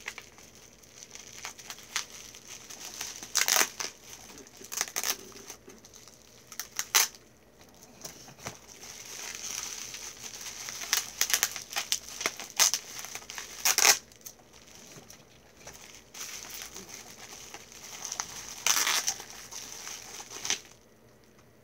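Packaging around a bundle of small perfume bottles being crinkled and torn open by hand: irregular rustling in spells, with quieter stretches between.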